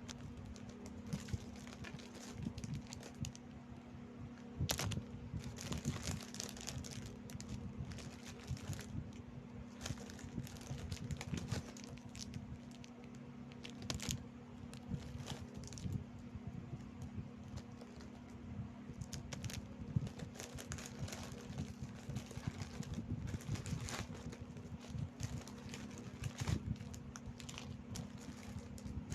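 Plastic snack-biscuit wrappers crinkling and tearing, mixed with the crunching of crackers being eaten close to the microphone; irregular crackles and clicks over a steady low hum.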